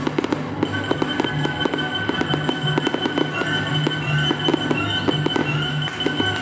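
Fireworks exploding in quick succession, many sharp bangs and crackles, over music played for the display.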